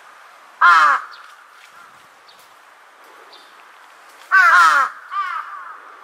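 Large-billed crow cawing: one loud caw about half a second in, then two more close together near the end, the second softer, each call falling slightly in pitch.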